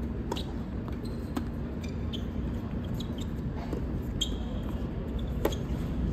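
Irregular sharp knocks and taps, about a dozen, the loudest about five and a half seconds in, over a steady low hum.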